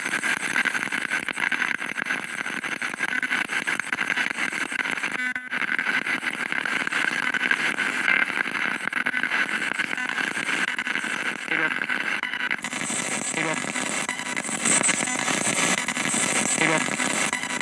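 Spirit box radio sweeping through stations: a steady rush of static chopped into rapid fragments, with snatches of broadcast voices. It drops out briefly about five seconds in, and its sound changes abruptly to a brighter hiss about thirteen seconds in.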